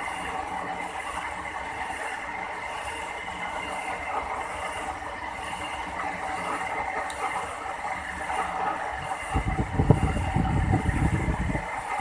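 Metal lathe running while a combination spade drill cuts into the end of the spinning bar: a steady grinding whir with a faint regular pulsing. A louder low rumble swells about nine seconds in and eases off near the end.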